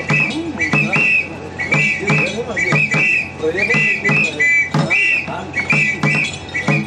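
Traditional ngoma dance music: a steady drum beat, short shrill whistle blasts repeated in rhythm, and voices singing along.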